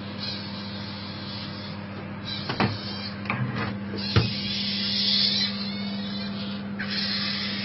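Steady low machine hum with a hiss over it, and a few sharp clicks and knocks around the middle.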